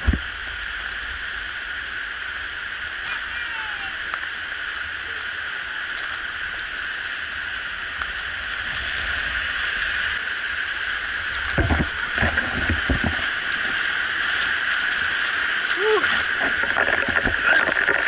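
Waterfall water rushing steadily, swelling a little about halfway through, with faint voices briefly near the middle and near the end.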